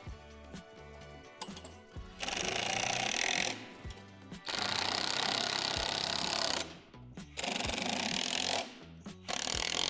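Power driver running in four bursts of one to two seconds each, driving screws to fasten the seat, over background music.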